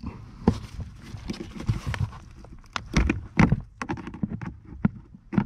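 Hands forcing a blower-motor wiring harness loose from its plastic push clip under a car's dashboard: irregular plastic knocks, clicks and rustling, several of them sharp.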